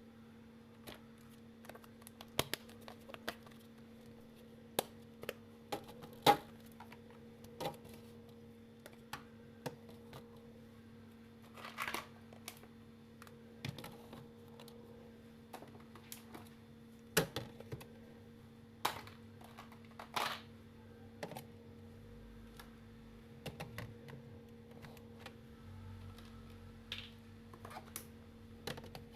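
Irregular light clicks and knocks of items and fridge parts being handled while a refrigerator is cleaned out, about one every second or two with a few louder taps, over a steady low hum.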